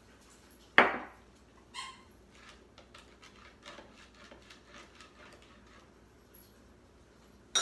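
Glass measuring cup set down on the kitchen countertop with a sharp knock about a second in, followed by a ringing glass clink and faint handling clicks; another sharp clink of dishware near the end.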